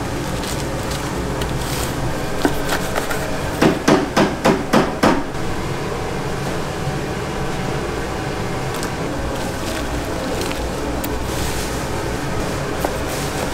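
A quick run of about six sharp knocks, about four a second, a little over a third of the way in, with a few lighter knocks just before, over a steady low hum.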